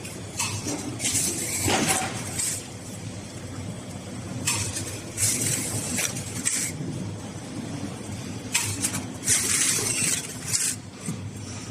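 Blister packaging machine running through its cycles: a steady low mechanical hum with repeated short hissing bursts, a cluster of them about every four seconds.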